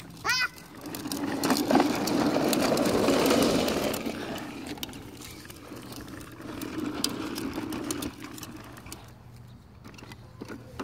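Hard plastic wheels of a child's ride-on toy car rolling and rattling over a concrete sidewalk, loudest in the first few seconds, easing, then swelling again before fading near the end. A brief high voice sound right at the start.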